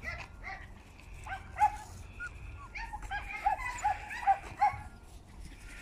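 Young puppies yipping and whimpering in many short, high calls, most crowded together from about three to five seconds in.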